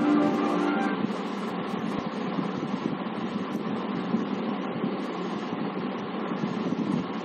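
Film music fades out about a second in, giving way to a steady rushing, wind-like noise with no tune in it.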